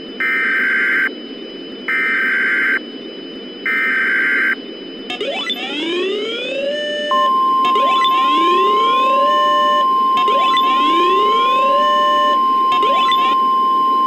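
Three one-second bursts of the SAME digital header of an Emergency Alert System weather-radio alert, then the steady 1050 Hz NOAA Weather Radio warning alarm tone starting about seven seconds in, the signal that a warning follows. From about five seconds in, a rising siren-like sweep repeats every couple of seconds over it.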